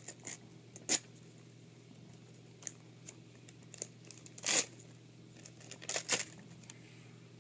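Wrapping paper being torn off a boxed present in a series of short rips with light crinkling between them. The loudest rips come about a second in, around the middle, and twice in quick succession near the end.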